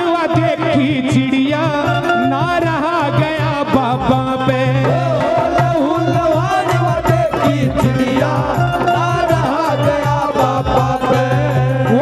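Live Haryanvi devotional bhajan music: a winding melody over percussion and a steady low drone.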